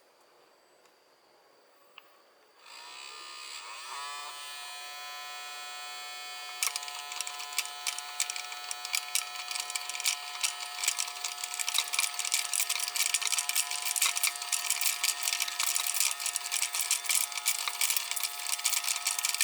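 Homemade mini grain grinder's small 12 V DC motor switching on about two and a half seconds in, spinning up briefly and settling into a steady high whine. From about seven seconds a dense, irregular rattle of kernels being struck by the spinning blade joins the whine.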